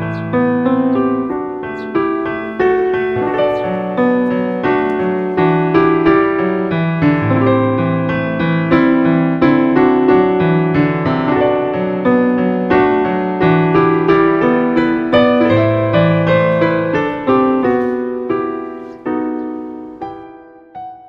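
Background piano music: a melody of steady notes over low bass notes, fading out near the end.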